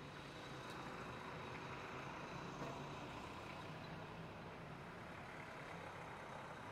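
Faint, steady background rumble with a low hum, like distant engine noise, and a faint click about a second in.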